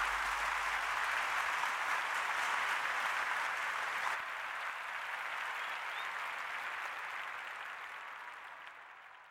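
Applause, over the last of the song's bass beat, which stops about a second and a half in; the applause fades out over the last few seconds.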